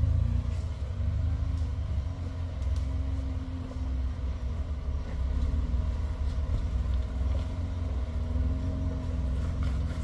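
A rock-crawling Jeep Wrangler's engine running at low revs: a steady low rumble, with a faint engine tone that rises and falls slowly as the throttle is worked.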